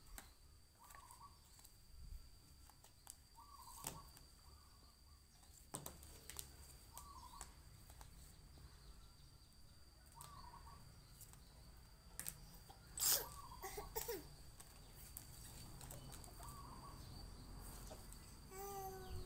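Faint outdoor ambience: a bird repeating a short call every two to four seconds over a steady high insect drone, with scattered light clicks and taps of flash cards handled on a wooden tabletop, the loudest cluster about 13 seconds in.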